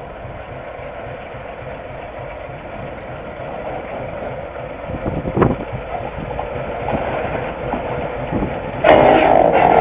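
Diesel-electric locomotive engine running, slowly getting louder, with a single knock about halfway through and a sudden louder sound near the end.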